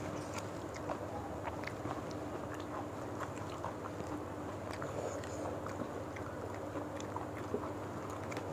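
Several people eating with their hands: chewing, with many small, irregular clicks as fingers pick apart fried gourami and rice on a banana leaf. A steady low hum runs underneath.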